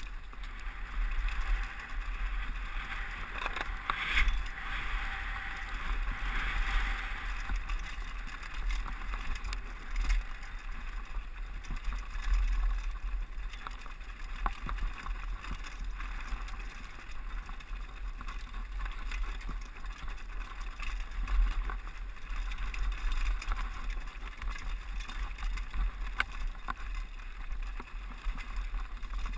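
Mountain bike riding fast down a loose rocky trail, heard from a helmet-mounted camera. Wind rumbles on the microphone over the hiss and crunch of the tyres on rock and gravel, and the bike rattles, with frequent sharp knocks from the rough ground.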